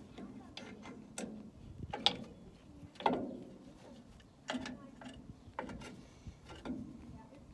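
Irregular metallic clicks and clanks, about one a second, some ringing briefly: hand tools and metal drum-brake parts being handled and fitted.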